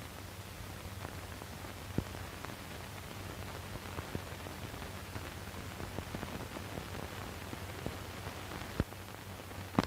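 Surface noise of an old film soundtrack: a steady hiss over a low hum, with scattered crackles and a few sharper pops, one about two seconds in and two near the end.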